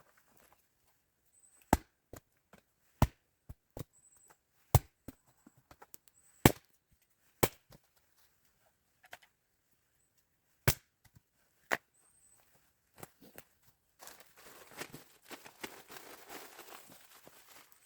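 Wood being chopped: a series of sharp, irregularly spaced blows, seven loud ones with lighter knocks between. Near the end come a few seconds of dense rustling and crackling.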